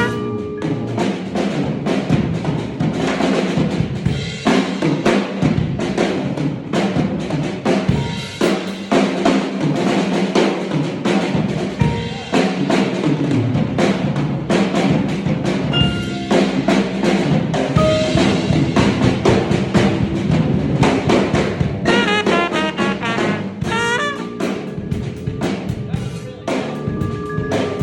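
Band improvising on a jazz-funk tune with the drum kit to the fore: busy snare, rimshots and bass drum, with a pitched melodic line coming back in near the end.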